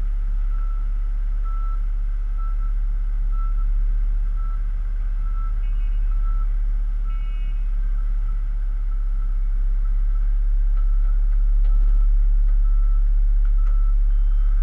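A construction vehicle's reversing alarm beeping about once a second, growing fainter in the second half, over the steady low rumble of diesel plant engines.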